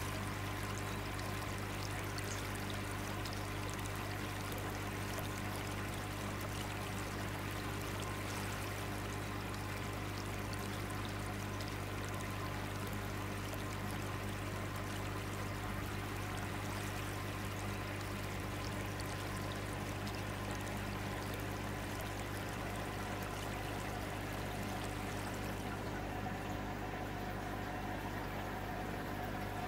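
Water steadily pouring and trickling in an aquarium tank, with a steady low hum beneath.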